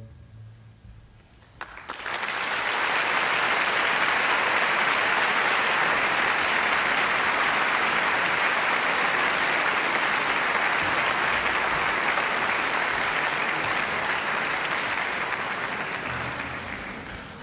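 Concert-hall audience applauding after the orchestra's final chord dies away: the clapping starts about two seconds in, swells quickly to a steady level, and fades in the last couple of seconds.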